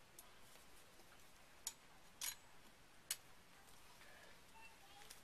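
Near quiet, broken by three small, sharp clicks of pliers working a thin steel wire, spaced about half a second to a second apart.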